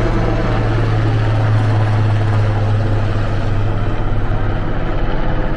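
Helicopter flying low overhead: a loud, steady rotor beat in quick regular pulses over a low hum.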